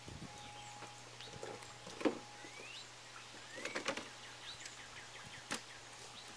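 A plastic tub knocking and scraping on wooden deck boards as a puppy mouths and tips it, with a few separate bumps: the loudest about two seconds in, a quick cluster near four seconds, and a sharp click about five and a half seconds in. Birds chirp in the background.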